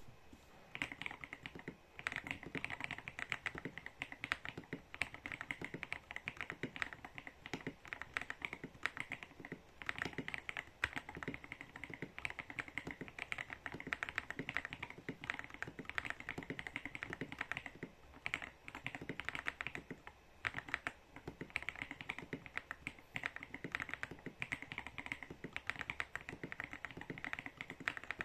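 Steady, fast typing on an Ajazz AK820 mechanical keyboard with Akko POM Brown switches, XDA-profile macaroon keycaps and a tape mod: a continuous run of keystroke clacks starting about a second in, with a few short pauses.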